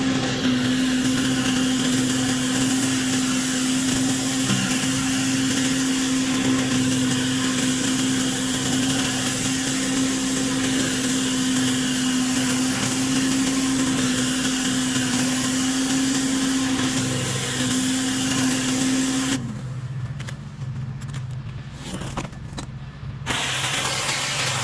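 Pressure washer running: a steady engine hum under the hiss of the high-pressure spray. About two-thirds of the way in, the spray stops and the hum drops to a lower pitch for a few seconds, then the spray starts again near the end.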